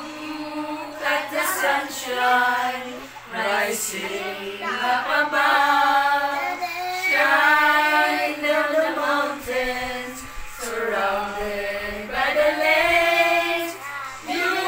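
A small group of men and women singing a song together, holding long notes on one melody.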